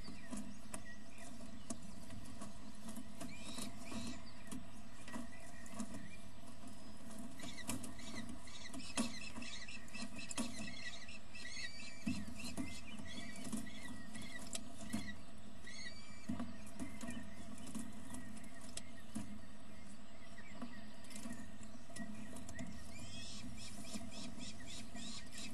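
Falcon chicks giving many short, high squeaky begging calls while an adult feeds them in the nest box. The calls come in clusters, thickest in the middle and again near the end, over a steady low electrical hum from the camera.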